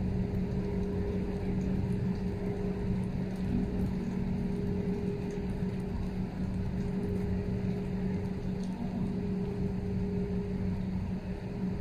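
A motor running with a steady low hum over a rumble, unchanging throughout.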